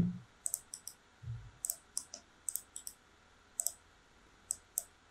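Computer mouse buttons clicking: about fifteen short, sharp, quiet clicks at irregular intervals, many in quick pairs.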